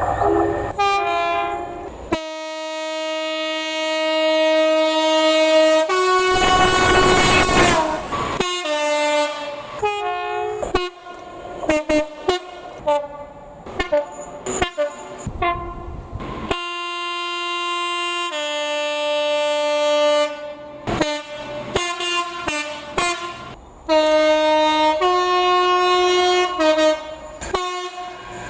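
Train horn sounded in a long run of blasts, some held for a few seconds and many short and quick, jumping between several different pitches. A burst of rushing noise sits under the horn about six seconds in.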